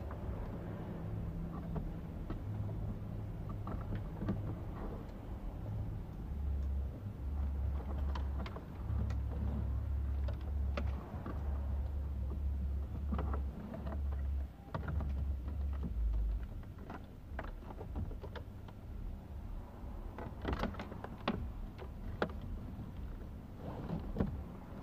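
Scattered clicks and knocks of wiring and plastic trim being handled under a car's dashboard, over a low, uneven rumble. The clicks come thickest near the end.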